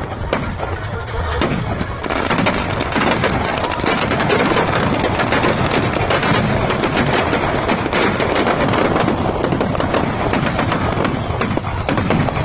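Firecrackers packed inside a burning Ravan effigy going off in a rapid, continuous crackle of bangs. It thickens to a dense, unbroken barrage about two seconds in.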